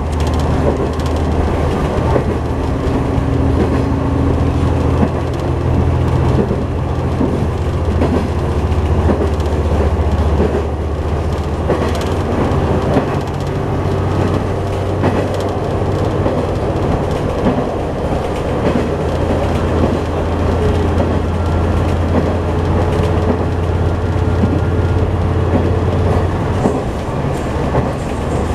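Cabin sound of a diesel railcar running at speed: a steady low engine drone with rumble from the wheels and track and scattered light clicks from the rail. Some of the drone's tones rise slowly as it goes.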